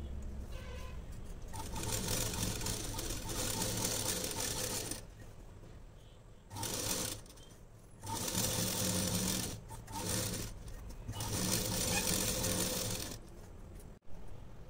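Sewing machine stitching through fabric in stop-start runs: one long run of about three seconds, then four shorter bursts with brief pauses between them as the seam is guided.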